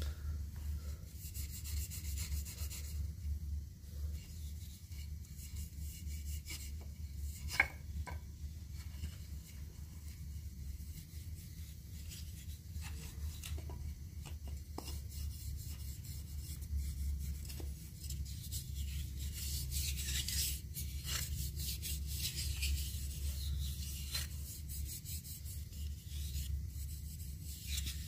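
Hands rubbing and handling finished mulberry-wood spoons: skin rubbing over the wood, with light wooden clicks as the spoons are moved. One sharp click comes about a quarter of the way in, over a steady low hum.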